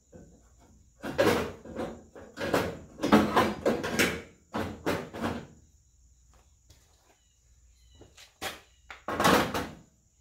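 Handling noise from work at the back of a car body: a series of short scraping and knocking bursts, with a quieter gap in the middle.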